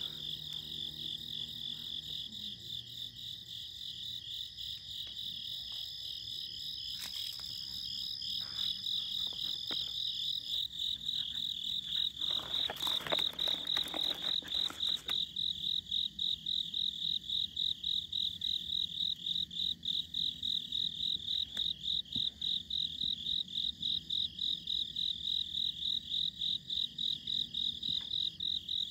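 Chorus of calling night creatures: a high, pulsing trill repeated steadily throughout, with a second, higher call that stops about ten seconds in. A brief rustling noise about halfway through.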